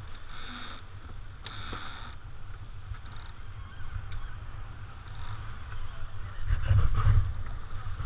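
Wind buffeting an action camera's microphone and water rushing along the hull of a small sailboat under sail. There are two short high squeaks in the first two seconds, and the rush swells louder about seven seconds in.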